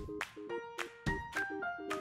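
Background music with a steady beat and short, bright keyboard notes.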